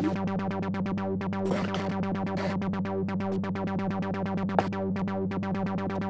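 Korg ARP ODYSSEi software synthesizer playing a fast, even run of short notes, about eight a second, each with a bright attack that quickly dulls, over a steady low tone.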